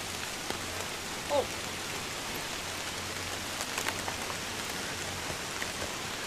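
Steady rushing background noise on a camcorder recording made in woods. A short vocal sound comes about a second in, and a few handling knocks come near four seconds in as the camera is shaken.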